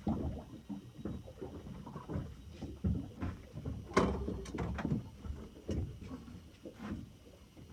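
Irregular knocks and clunks aboard a boat, with one sharper click about four seconds in.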